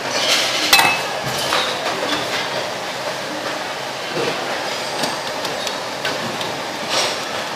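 Metal ladle and utensils clinking and knocking against ceramic bowls and a steel stock pot: a handful of separate sharp clinks over a steady background noise.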